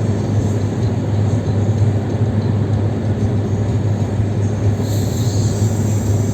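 Steady in-cabin drone of a Volkswagen Passat B6 diesel cruising at motorway speed, engine held around 3000 rpm during a forced particulate-filter regeneration, with road and wind noise.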